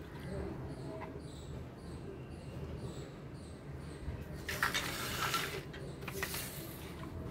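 Faint handling noise: hands brushing and scraping over a tabletop and loose plastic toy parts, a little louder for a second or so about four and a half seconds in and again briefly near six seconds.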